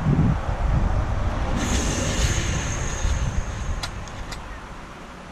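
Leftover air rushing out of a car tire on a steel wheel: a sudden loud whoosh that tapers off over several seconds, with a thin whistling hiss in the middle. Two sharp clicks come near the end.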